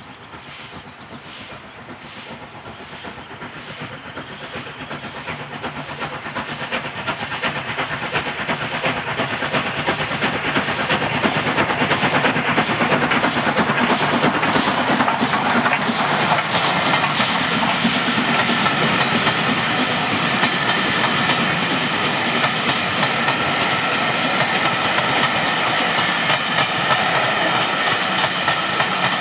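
SR Schools class three-cylinder 4-4-0 steam locomotive No. 926 'Repton' working a passenger train, its exhaust beats growing louder as it approaches and passes close. The coaches follow, their wheels clattering over the rail joints.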